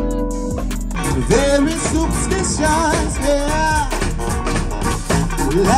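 Live band music with a man singing, his voice coming in about a second in over held keyboard and guitar chords.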